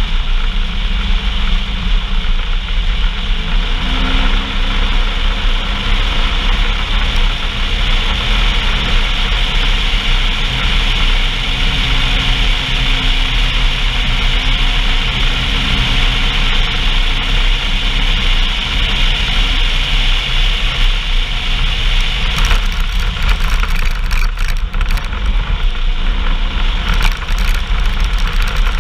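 Off-road vehicle engine running steadily under heavy low rumble and wind noise on the microphone, recorded on board during the ride. A faint engine tone rises slightly about four seconds in, and gusty crackle joins in the last several seconds.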